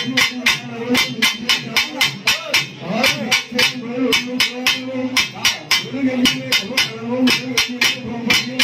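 Festival drums beating a fast, even rhythm of about four to five strokes a second, over a low, wavering droning tone.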